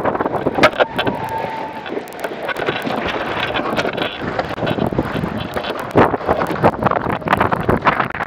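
Wind buffeting the camera microphone over water rushing and slapping against the hull of an A-class catamaran under sail, with frequent irregular knocks and splashes. A brief squeak sounds about a second in.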